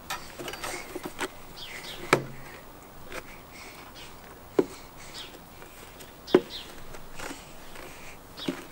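Garden swing set knocking as a child steps across its swaying plastic seats: a few sharp clacks, the loudest about two seconds in and the others spaced a second or two apart.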